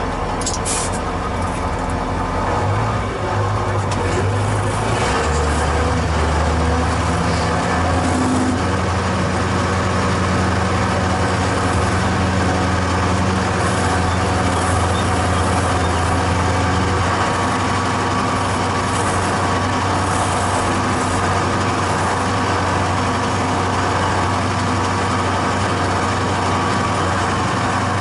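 Diesel engine of a KhTZ-17221 wheeled tractor running steadily while pulling a cultivator through the field. The engine note shifts a few seconds in, then holds steady.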